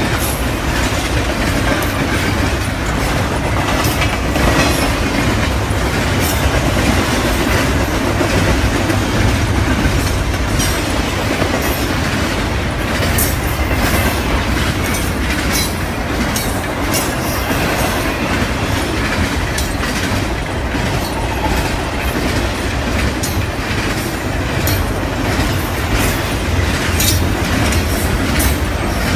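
Double-stack container freight train rolling past: a steady rumble of the cars with frequent irregular wheel clicks and clatter over the rail joints.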